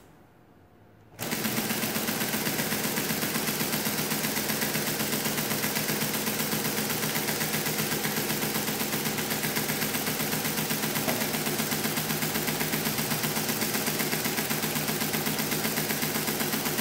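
Friden S10 electromechanical calculator starting about a second in and running on with a rapid, even mechanical clatter, its motor-driven mechanism cycling over and over. The multiplication never completes because nothing in the mechanism wants to engage.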